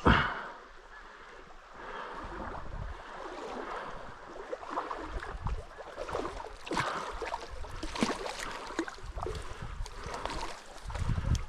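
Creek water running and splashing close to the microphone, with irregular splashes and knocks, a sharp knock at the start and a low wind rumble near the end.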